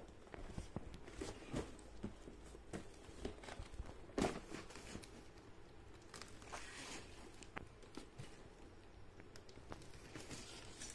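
Cardboard packaging being handled: scattered knocks and rustles as a boxed sampler is shifted in its shipping carton, with a sharp knock about four seconds in. Around six to seven seconds in, a tearing rustle as the tape or seal sticker on the box is peeled.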